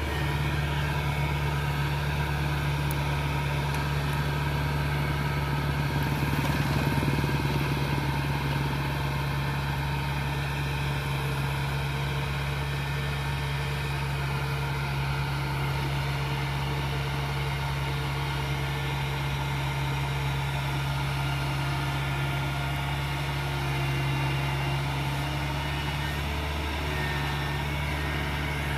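Kubota DC70 combine harvester's diesel engine running steadily under load as the tracked machine climbs out of a muddy paddy up a bank.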